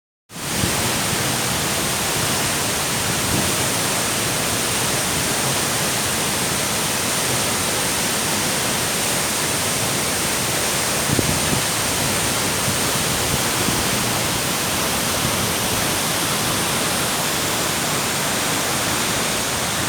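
Nungnung Waterfall's falling water rushing loudly and steadily, a constant even roar.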